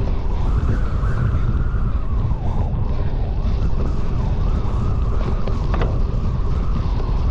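Wind buffeting a GoPro's microphone while the bike is ridden at race pace: a loud, steady low rumble, with a fainter tone wavering up and down over it.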